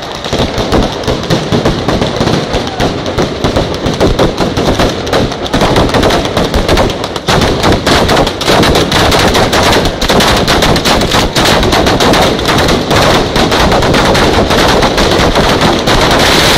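Long strings of firecrackers exploding in a dense, unbroken rattle of sharp bangs, very loud throughout.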